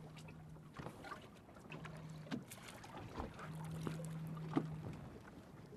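Faint sounds aboard a small fishing dory while a black rockfish is reeled in and swung aboard: scattered light clicks and knocks over water noise, with a low hum that comes and goes three or four times.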